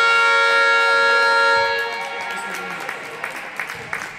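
Basketball arena horn sounding one long, steady electronic tone that cuts off about two seconds in, followed by scattered ball bounces and voices on the court.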